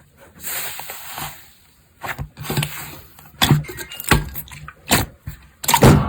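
Slime being squeezed and pressed by hand: a crackling rustle for about a second near the start, then a series of sharp pops as the slime is squished.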